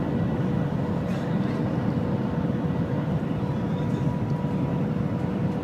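Shanghai Maglev train running at speed, heard from inside the passenger cabin: a steady low rumble with a faint steady hum over it.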